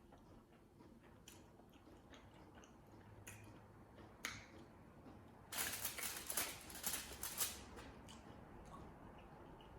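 Close-miked eating: soft chewing with small mouth clicks, then a louder crackly run lasting about two seconds a little past halfway.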